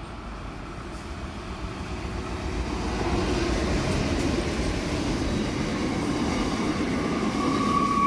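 Freight train hauled by two NR-class GE Cv40-9i diesel-electric locomotives running through the station. The engines and the rumble of wheels on rail grow louder over the first three seconds as the locomotives arrive, then hold steady as the locomotives and wagons roll past close by. A high steady squeal sets in near the end.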